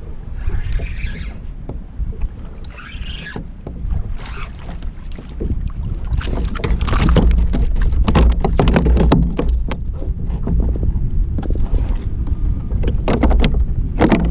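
Wind buffeting the microphone over water lapping at a kayak while a hooked redfish is brought alongside. From about six seconds in comes a run of splashes and knocks as the fish reaches the boat.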